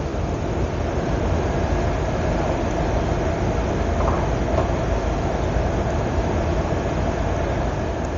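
Steady, even noise, heaviest in the low range, with a faint steady hum over it and no breaks or strokes.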